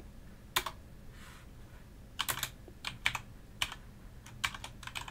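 Typing on a computer keyboard: irregular keystroke clicks, a few keys at a time with short pauses between.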